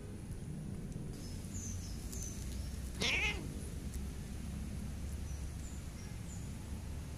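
A cat gives one short meow that falls in pitch, about three seconds in.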